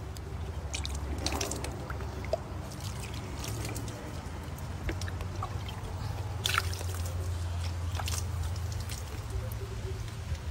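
Water poured from a plastic dipper over a person's body, splashing and dripping in scattered bursts over a low steady hum.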